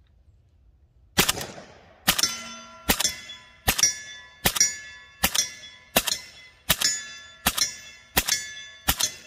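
WBP Jack AK rifle in 7.62×39 firing subsonic rounds through a Wolverine PBS-1 suppressor: eleven quiet suppressed shots in slow semi-automatic fire, about one every three-quarters of a second, starting about a second in. Each shot is followed by the ringing clang of a struck steel target.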